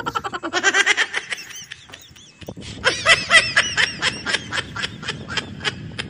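A person laughing in quick repeated pulses, in two bouts: a short one at the start, then a longer one from about three seconds in that trails off.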